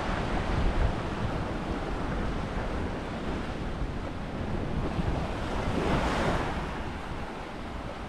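Small waves washing up on a sandy beach, with wind rumbling on the microphone; one wash swells louder about six seconds in.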